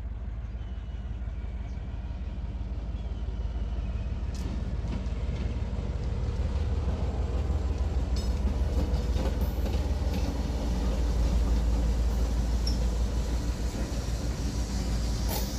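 A pair of diesel-electric locomotives running past at the head of a freight train. Their deep engine rumble grows louder as they come alongside, with a few sharp clicks from wheels on rail joints.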